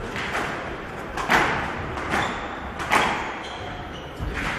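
Squash rally: the ball being struck by rackets and hitting the court walls, about five sharp cracks roughly a second apart, echoing around the court.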